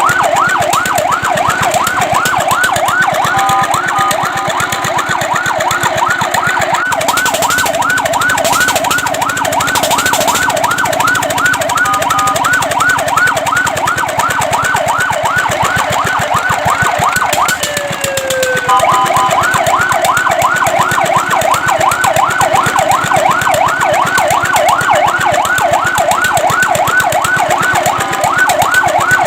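Fire truck's electronic siren in a fast yelp, rapid rising sweeps about four a second, loud. A few times it breaks briefly into short steady tones, and about 18 s in the yelp stops for a second with a single falling tone before starting again.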